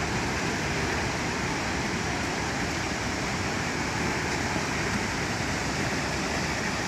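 Steady rushing of a flowing mudslide torrent of mud, water and debris.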